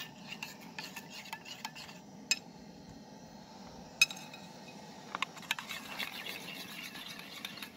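A spoon stirring pancake batter in a bowl, clinking and scraping against the sides, with a few sharp clinks standing out, the loudest about two and four seconds in, over a faint steady hiss.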